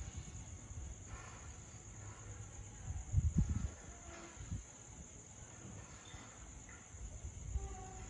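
Steady high-pitched chirring of night insects, with low rumbling on the microphone that peaks about three seconds in.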